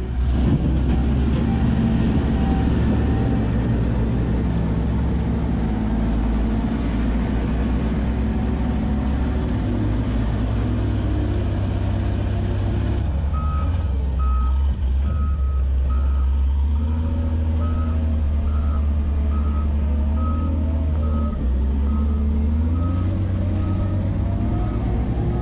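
Caterpillar 950F wheel loader's diesel engine working, its pitch rising and falling as it is revved. From about halfway through, its reversing alarm beeps steadily, about one and a half beeps a second.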